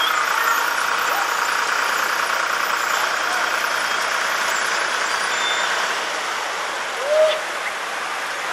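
Vehicle engine running steadily, with voices mixed in and a short rising-and-falling call about seven seconds in.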